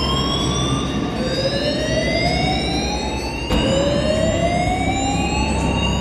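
Building fire alarm sounding a slow rising whoop: each sweep climbs steadily in pitch for several seconds, and a fresh sweep starts from the bottom about halfway through. A steady low hum runs underneath.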